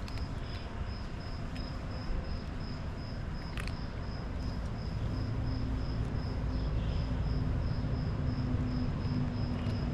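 An insect chirping steadily, one high note pulsing about three or four times a second, over a low rumble; a steady low hum sets in about two seconds in.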